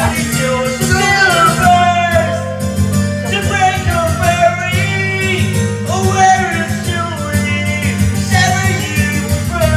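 Karaoke: a man singing a pop ballad into a microphone over a backing track, both played loud through the room's PA speakers.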